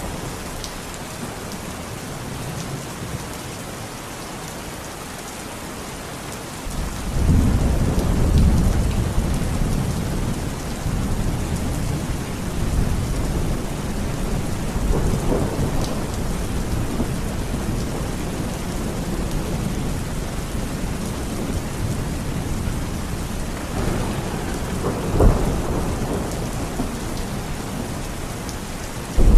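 Steady rain falling, with thunder rumbling in low and loud about a quarter of the way through and rolling on for several seconds, and another roll of thunder near the end.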